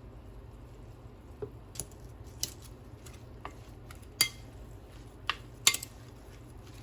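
Kitchen utensils clinking against dishes: about seven sharp, separate clinks, the loudest two in the second half, over a faint low hum.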